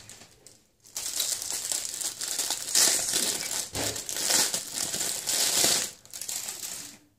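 Thin plastic packaging crinkling and crumpling in the hands as it is opened and pulled off, in several uneven swells.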